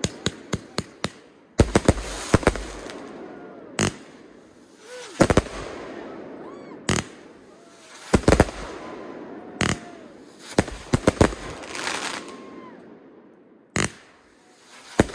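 Fireworks going off: sharp bangs every second or two, some in quick strings of pops, each followed by a fading crackle.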